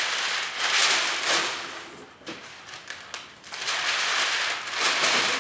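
Crumpled packing paper crinkling and rustling as it is crushed and packed into the bottom of a cardboard mirror carton. It comes in two long stretches with a lull in the middle.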